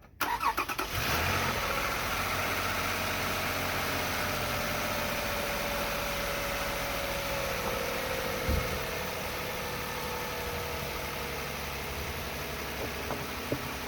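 2009 Toyota Sienna's 3.5-litre V6 cranking briefly and catching, then idling steadily on its new ignition coil and spark plugs. A tone in its running sinks slowly as the idle settles.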